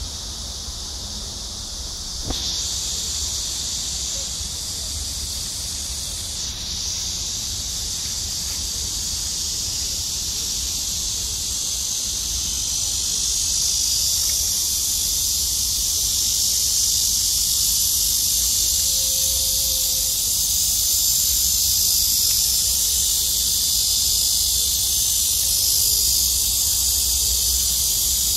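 Cicadas buzzing in a dense, steady shrill chorus, stepping up in level about two seconds in and growing louder toward the middle.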